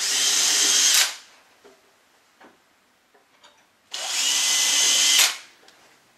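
Cordless drill pre-drilling holes overhead for timber pelmet brackets, in two steady bursts: about a second at the start, then about a second and a half starting some four seconds in.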